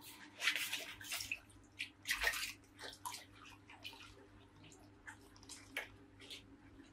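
Water splashing and dripping in irregular bursts, the biggest splashes in the first two seconds or so, then lighter scattered drips and splashes.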